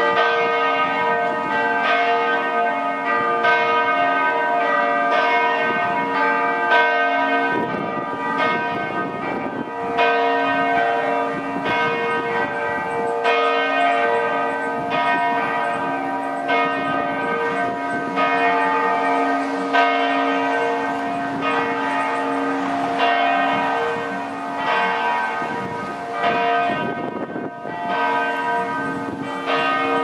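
Four church bells ringing together in a continuous peal, their strikes overlapping and each tone ringing on long after it is struck.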